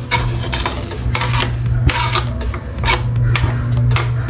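A series of rasping scrapes as chopped greens are scraped off a wooden chopping board into a pot of soup, then a spatula stirring in the aluminium pot near the end, over a steady low hum.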